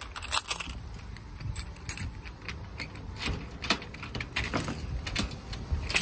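Keys jangling, with irregular metal clicks and knocks of a security screen door being unlocked and handled.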